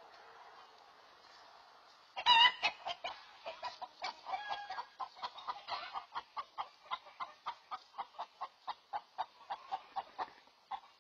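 Chicken letting out a loud squawk about two seconds in, then clucking rapidly and insistently, about four clucks a second, the alarm cackle of a startled hen.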